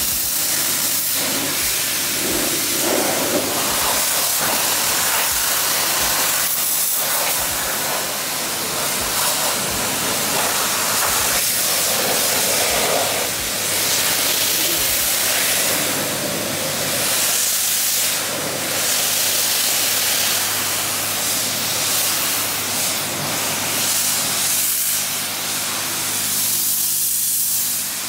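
Self-serve car-wash pressure wand spraying water onto a pickup truck's bumper and hood: a steady, loud hiss of spray with a low, steady hum underneath.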